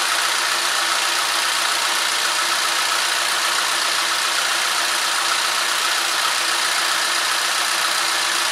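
Steady, unchanging engine-idle noise: a hiss with a faint even hum. It is the 2012 Chevy Equinox's four-cylinder Ecotec engine idling while its ignition is being scoped.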